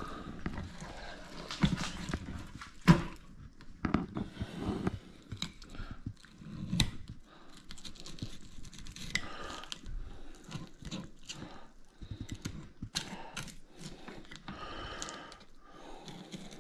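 Fillet knife cutting and scraping between a longnose gar's hard, scale-armoured skin and its meat on a wooden cutting board: irregular crunches, scrapes and clicks, the loudest crack about three seconds in.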